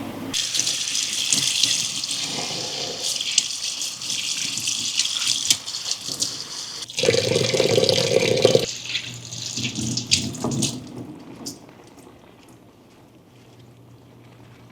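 Kitchen tap running into a sink, with splashing and small knocks. About seven seconds in there is a lower, fuller rush for a second or two. The water stops about eleven seconds in.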